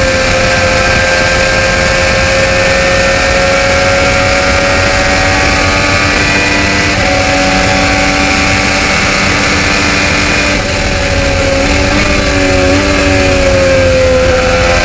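IndyCar's twin-turbo V6 engine heard from the onboard camera, held at a steady high rev at racing speed, with a slight dip in pitch about three-quarters of the way through before it picks up again.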